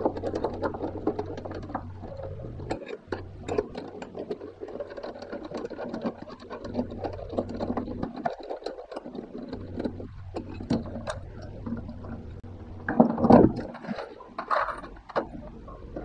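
Small clicks and rattles of a screwdriver and loose metal and plastic parts while the drive motor's wiring connector and mounting screws are worked loose inside a front-loading washing machine, over a low steady hum. A louder clatter of parts comes near the end.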